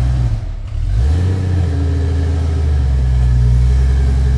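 Engine of an off-road 4x4 under load, crawling up a steep muddy climb. The revs sag briefly about half a second in, then pick back up and hold steady.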